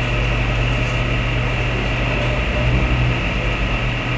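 Steady low hum with a constant hiss of background room noise, unchanging throughout, with no knocks or splashes.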